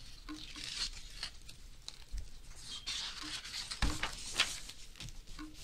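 Pages of a large hardcover picture book being handled and turned: paper rustling and sliding, with a few soft knocks about four seconds in as the page comes over.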